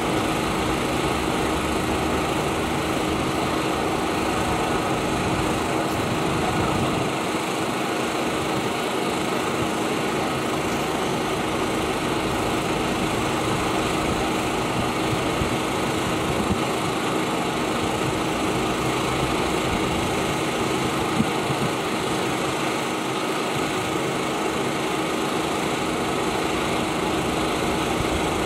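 A small engine running steadily at a constant speed, with a steady hum. One brief knock comes about two-thirds of the way through.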